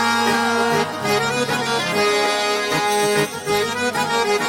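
Instrumental passage of a Hindi pop love song: a melody of long held notes with some sliding pitches over steady accompaniment, with no singing.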